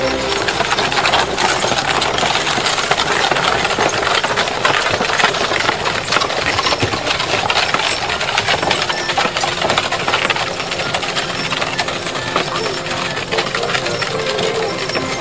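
Horse-drawn wooden hay carts rolling over a gravel track, their spoked wheels crunching and rattling steadily, with the clatter of the carts and harness.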